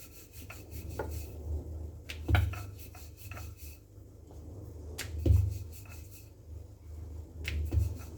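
A rolling pin rolling roti dough on a board: a repeated rubbing back and forth, with three louder knocks of the pin against the board about two and a half seconds apart.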